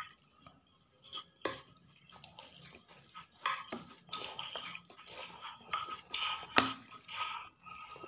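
Metal fork and spoon clinking against a ceramic bowl of bakso meatball noodle soup: a sharp clink about a second and a half in and a louder one late on, with the soft slurping of noodles and broth in between.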